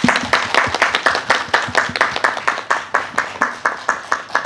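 A few people clapping their hands in applause: quick, even claps at about five a second.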